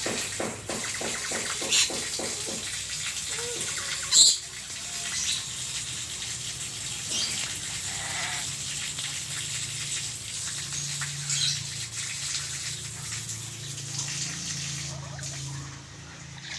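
Pet lories making scattered short, high calls, the loudest a sharp squawk about four seconds in. A quick run of even clicks sounds in the first couple of seconds.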